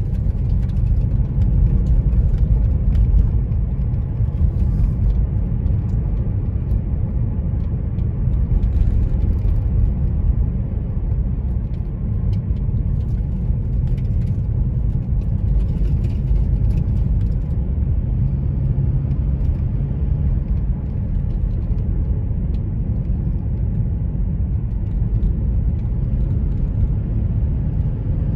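A car driving along a mountain road, giving a steady low rumble of engine and tyres with faint scattered ticks above it.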